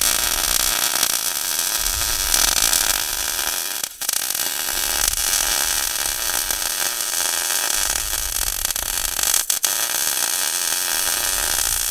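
MIG welder arcing in one long continuous run: a steady, even crackling hiss, broken by two momentary stops about four and nine and a half seconds in.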